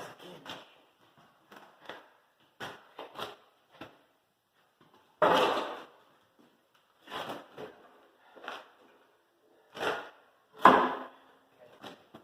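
Irregular knocks and clanks from tire-mounting work as a rear tractor tire is worked onto its steel rim, with two louder bangs about five seconds in and near the end.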